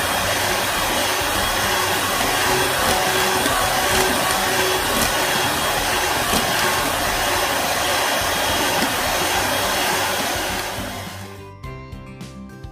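Electric hand mixer running steadily at speed, its beaters whipping egg whites into meringue in a plastic bowl. The mixer sound fades out about eleven seconds in, and background music with plucked notes takes over near the end.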